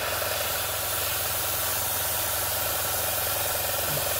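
Airbrush spraying thinned acrylic paint: a steady, even hiss of air and paint, with a steady low hum beneath it.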